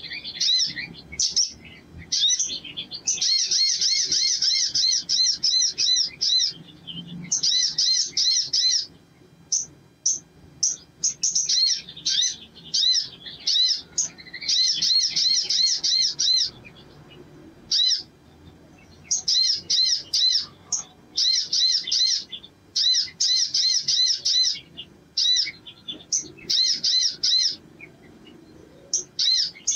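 Caged male sunbird singing: loud, high, fast chattering trills of rapidly repeated chirps in bursts of one to two seconds, broken by short pauses.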